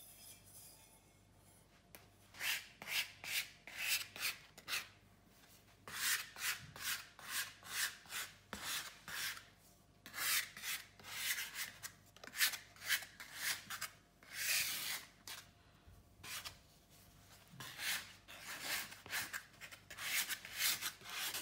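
Plastic bench scraper scraping across a floured bamboo cutting board, sliding flour under a ball of bread dough to keep it from sticking. Quick repeated scraping strokes, two to three a second, in runs of a few seconds with short pauses, starting about two seconds in.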